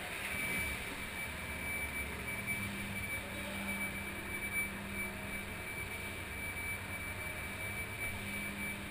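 Steady low drone of the ferry's engines, heard on the enclosed car deck, with a thin steady high whine over it.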